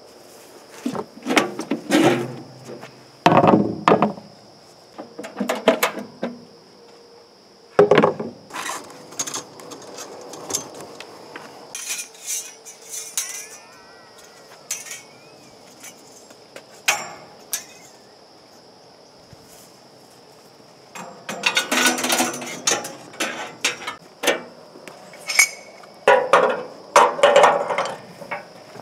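Irregular metallic clanks, clinks and rattles from a homemade band sawmill as its steel band blade is handled off the wheels and the blade-wheel guard and tensioner are worked, in uneven bursts with short pauses between.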